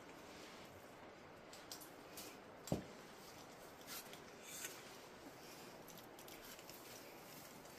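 Faint scattered taps and clicks over a low steady hiss, with one dull thump a little under three seconds in, from people scrambling over rock in a cave.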